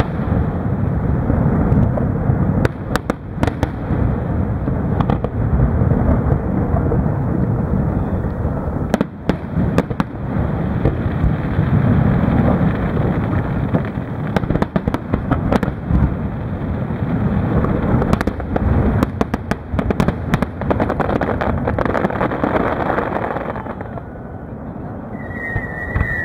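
Aerial fireworks shells going off in rapid succession: a continuous deep rumble of booms packed with sharp cracking reports. The volley eases a little near the end, where a high whistle starts.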